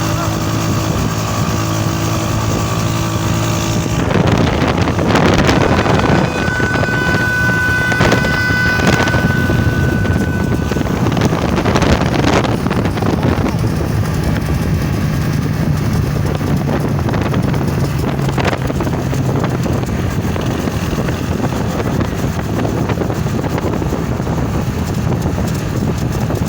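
Motorcycle engine running on the move, with heavy wind noise on the microphone. About six seconds in, a train-style horn sounds a steady, several-toned blast for about four seconds.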